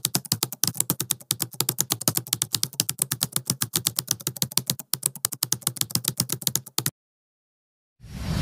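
Typing sound effect: rapid key clicks, about eight or nine a second, that stop about seven seconds in. After a second of silence, a loud rushing noise swells up near the end.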